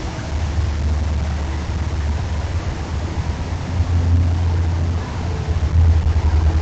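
Outdoor background noise: a steady hiss under a low rumble that swells and eases three times.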